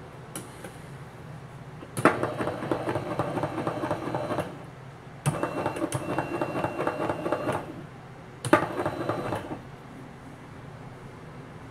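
Invacare hospital bed drive motor, a geared electric motor worked from its hand pendant, running in three spells, each starting with a sharp click: about two and a half seconds, again about two and a half seconds, then a short one of about a second.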